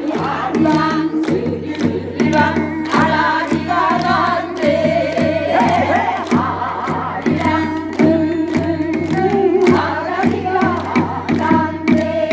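Live music: several voices singing a song together over a steady drum beat.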